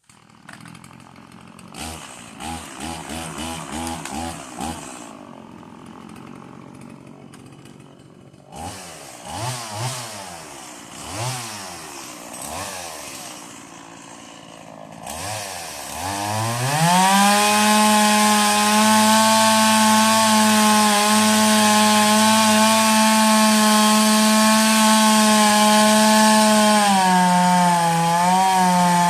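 Stihl two-stroke chainsaw running unevenly at first, then revved up and down in short blips. About sixteen seconds in it rises to full throttle and holds a steady high whine, with a brief dip in pitch near the end.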